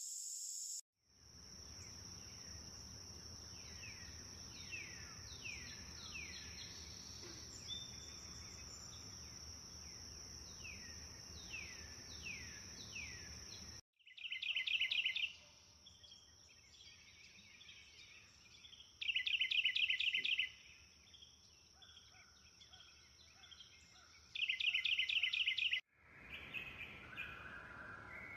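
Tropical rainforest ambience: a steady high-pitched insect drone under repeated falling whistled bird calls, then three loud, rapid pulsed calls a few seconds apart. The soundscape changes abruptly twice where different recordings are cut together.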